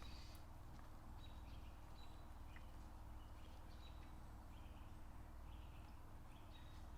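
Near silence: faint outdoor background with a steady low hum and a few faint, short high chirps scattered throughout.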